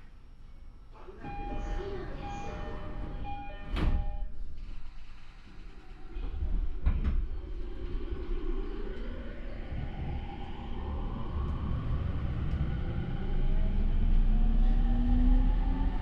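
Inside a JR E231-series commuter train car: a sharp thump about four seconds in, then the train pulls away. The Mitsubishi IGBT VVVF inverter and traction motors whine with tones rising steadily in pitch as it accelerates, over low rumbling running noise.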